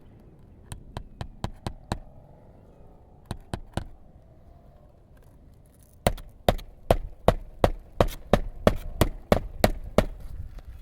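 Hammer driving roofing nails into asphalt shingles: several light tapping strokes, then a quick run of about a dozen harder blows, roughly three a second, over the last few seconds.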